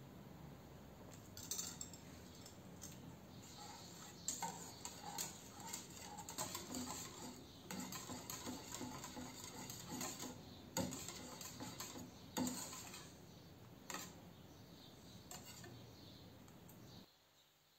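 A wire balloon whisk stirring a hot milk-and-coffee mixture in a stainless steel saucepan, its wires scraping and clicking against the metal sides and bottom, with a few louder knocks. The whisking stops shortly before the end.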